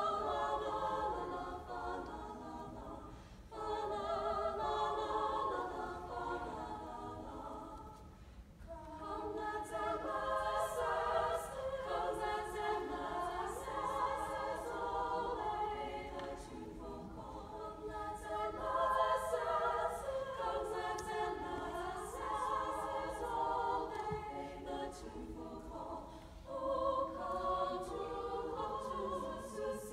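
Women's choir singing a cappella in several parts, in sustained phrases with short breaks about 3.5 and 8.5 seconds in.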